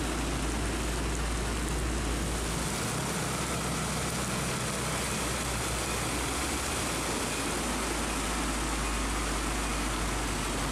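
Steady heavy rain hiss, with the low running hum of a truck engine in traffic underneath.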